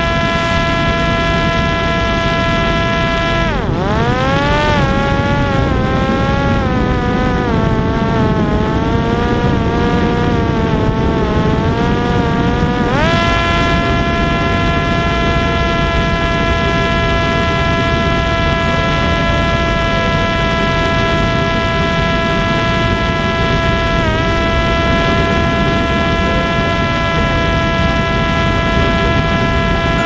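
Parrot Disco's electric pusher motor and propeller whining steadily at a high pitch over heavy wind rush, heard from aboard the aircraft. About three and a half seconds in the pitch drops sharply and wavers lower, then climbs back to the steady whine about thirteen seconds in, with a brief dip near the twenty-four second mark.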